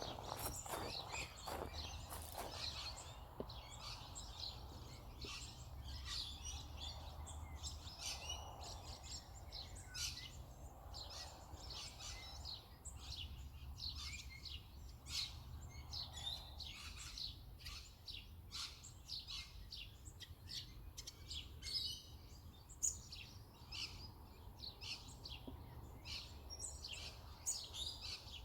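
Birds at dawn chirping and singing in a busy, overlapping chorus of short high calls, over a steady low rumble.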